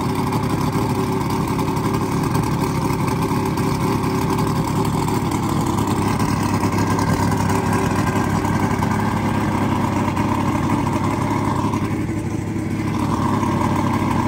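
1978 Mercury 115 Tower of Power inline-six two-stroke outboard running steadily on a test stand, its lower unit out of the water on a hose supply, freshly brought back to life with a new internal harness, fuel pump and rebuilt carburetors. The note dips briefly near the end and then picks up again.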